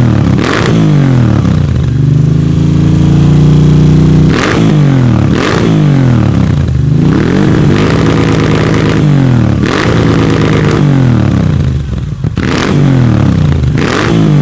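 Moto Guzzi V9 Bobber Sport's air-cooled transverse 90-degree V-twin, revved repeatedly while standing. The pitch rises and falls about six times, and the engine is twice held at a steady higher speed for a couple of seconds before dropping back.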